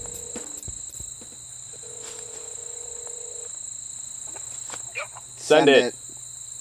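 Crickets chirping in a steady high-pitched drone. A voice calls out briefly about five and a half seconds in, louder than the insects.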